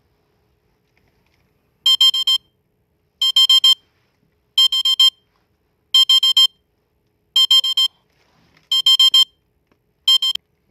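Alarm clock beeping: groups of about four quick high-pitched beeps, repeating about every second and a half, starting about two seconds in; the last group is cut short near the end.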